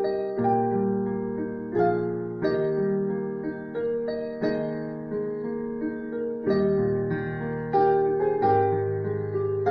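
Slow keyboard music: chords and notes struck about once a second and left to fade.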